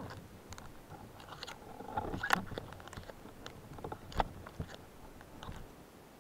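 Irregular underwater clicks and knocks as a speargun and a speared grouper are handled; the loudest comes about two seconds in, with another sharp knock about four seconds in.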